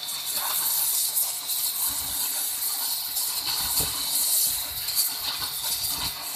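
Pressure washer's high-pressure water jet hissing steadily as it blasts into a brick.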